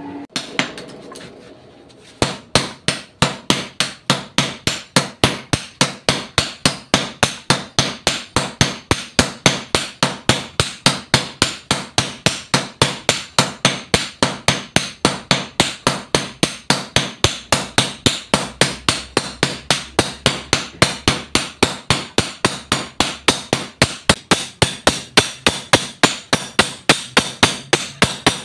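Three smiths' hammers striking a hot machete blade on an anvil in turn, a fast, even clanging of about four blows a second, starting about two seconds in: the blade is being hand-forged.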